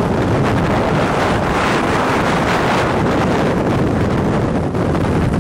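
Strong wind from a dust-filled tornado buffeting the microphone: a steady, loud rushing noise.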